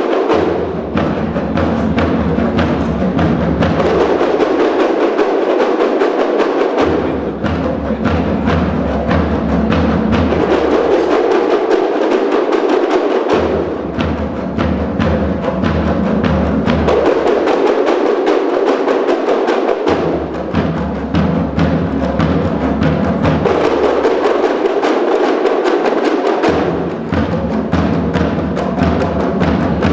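Music led by dense, busy percussion, with a low bass part that shifts every few seconds.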